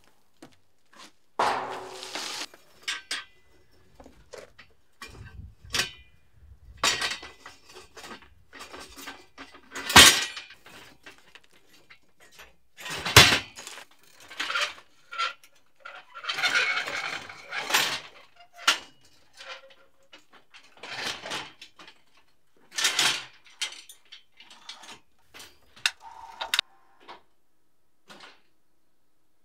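Steel scaffolding frames and perforated galvanized steel planks clanking and scraping as they are handled and fitted together, in a string of separate metallic knocks and clatters with short pauses between.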